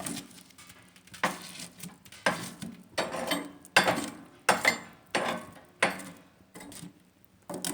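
A wood-burning stove being tended: a run of about eight sharp metallic clanks and knocks, less than a second apart at first, then stopping about six seconds in.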